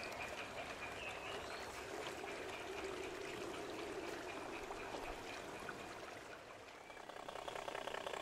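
Faint steady rolling noise of model goods wagons running past on garden-railway track. It drops away about six seconds in.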